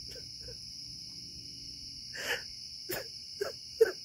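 A man sobbing in short, catching breaths, several of them from about halfway, the sharpest near the end, over the steady high chirring of night insects.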